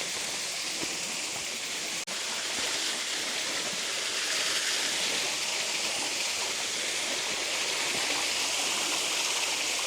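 Waterfall: a steady rush of falling water, with a momentary break about two seconds in and a little louder from about three seconds in.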